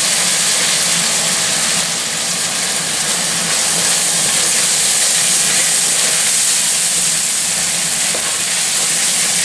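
Raw rice sizzling in hot oil with browned garlic in a stainless steel pot as it is stirred with a wooden spoon: a steady hiss. The rice is being sautéed before the broth goes in.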